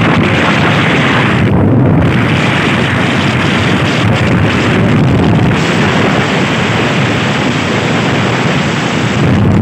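Loud, steady rush of wind buffeting the microphone on a moving motorcycle, with the bike's road noise underneath.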